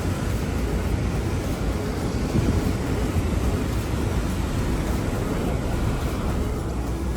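Strong storm wind rumbling on the microphone, a steady loud rushing noise.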